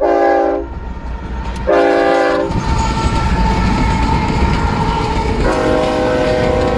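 Freight train led by General Electric diesel locomotives sounding two short horn blasts as it approaches. The locomotives then pass close by with a steady whine, and the wagons' wheels clatter on the rails. A lower-pitched horn blast sounds near the end.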